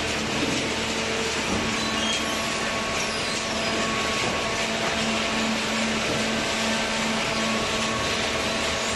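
Hydraulic cardboard baler running: a steady mechanical rush with a constant hum underneath, unbroken throughout.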